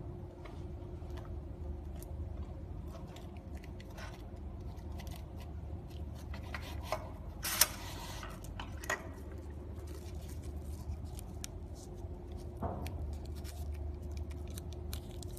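Wrapper rustling and small clicks from an SW-P100 manual pleated soap wrapping machine as a round soap ball is pressed through its mould to pleat the wrapper, with one sharp clack about halfway through. A steady low hum runs underneath.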